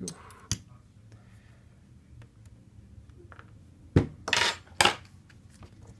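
Small metal clicks from handling a disassembled pin-tumbler lock and its parts, with a sharper metallic knock about four seconds in and a brief clatter right after it.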